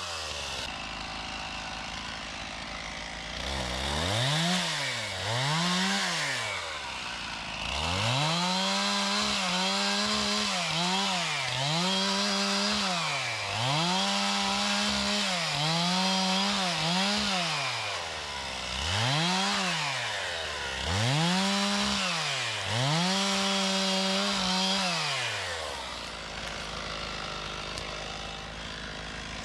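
Stihl MS 391 two-stroke chainsaw revved at full throttle. It is held at high revs in stretches of a second or two, with brief dips between, as when bucking a log. Near the end it drops back to a low hum.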